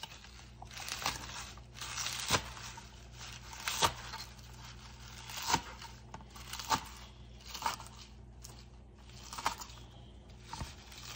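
Large kitchen knife chopping spinach and leafy greens on a silicone mat over an acrylic cutting board. The blade knocks down onto the board about every second, with the leaves crunching and tearing between strokes.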